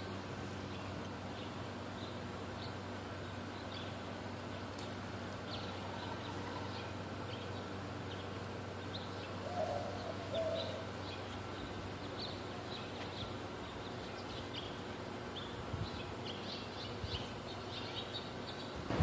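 Small birds chirping in short, scattered calls, with a brief lower call about halfway through, over a steady low hum.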